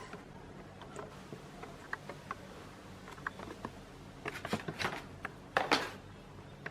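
Small clicks and taps of parts and tools being handled while a coffee machine is taken apart, with a few short rattles of clattering parts in the second half. A steady low hum runs underneath.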